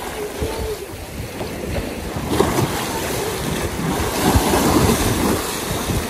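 Small sea waves surging against a stone seawall and washing over its steps, a rushing, splashing wash that swells louder in the second half. Wind buffets the microphone underneath.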